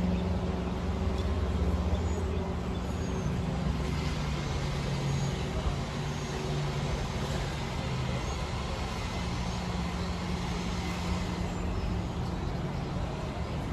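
A motor vehicle running steadily, a constant low engine hum over road noise.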